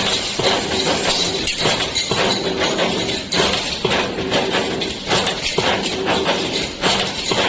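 2D CNC wire bending machine running: a steady motor hum with frequent, irregular clacks and knocks from the machine working the wire.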